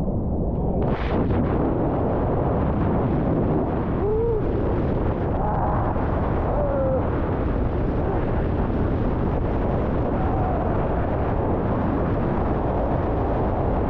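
Strong wind buffeting the microphone, with water rushing and spraying past a kiteboard riding over choppy sea waves; a steady, loud noise.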